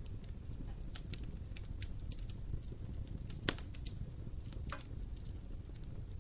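Wood fire burning in an open fireplace, crackling with irregular sharp pops over a steady low rumble; the loudest pop comes about halfway through.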